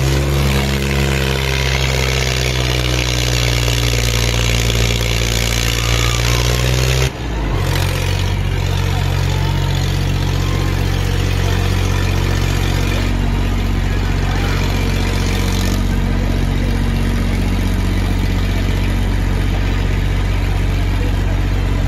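Tractor diesel engines running hard and steady under load in a tractor tug-of-war pull. About seven seconds in the sound breaks off abruptly and resumes with a different, steady engine note.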